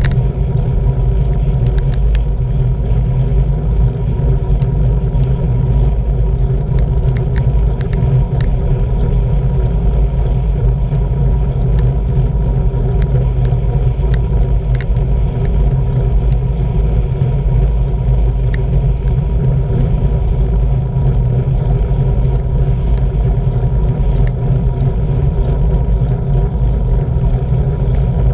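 Steady low rumble of wind buffeting and road noise on a handlebar-mounted action camera's microphone as a road bike rolls along at about 22 mph, with a few faint clicks.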